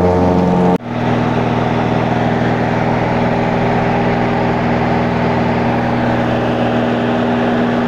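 Small twin-engine propeller plane's engines and propellers running at high power, heard from inside the cabin during takeoff and climb: a loud, steady drone. A sudden break about a second in, after which the drone continues at a different pitch.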